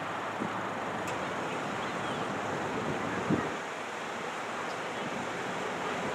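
Steady rushing of a Boeing 767-300ER's twin jet engines on final approach, still some way off. A brief thump about three seconds in.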